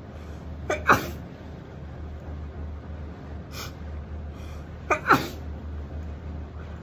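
A woman sneezing twice, about a second in and again about five seconds in. Each sneeze is a short lead-in followed by a loud, sharp sneeze.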